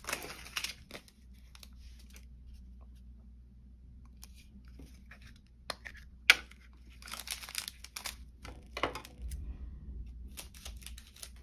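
Small plastic bags of diamond painting drills crinkling and rustling as they are handled and tipped out onto a plastic drill tray, in scattered short bursts with a sharp click about six seconds in.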